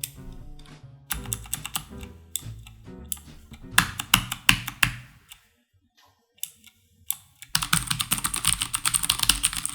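Typing on a Durgod Taurus K310 mechanical keyboard with Cherry MX switches, keys clacking. Background music plays under the first half, then comes a short near-silent gap with a few stray clicks, and near the end fast, dense typing with no music.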